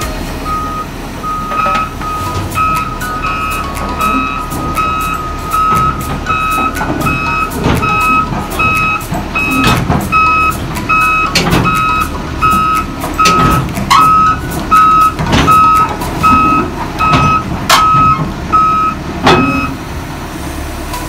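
Volvo EC200D crawler excavator's travel alarm beeping steadily, about one and a half beeps a second, as the machine tracks off a lowboy trailer, over its diesel engine running. Steel tracks clank sharply against the trailer deck, louder in the second half, and the alarm stops shortly before the end.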